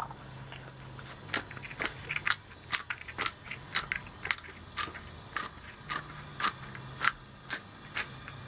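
Hand-held pepper mill being twisted, grinding peppercorns in a run of short crunching clicks, about two a second.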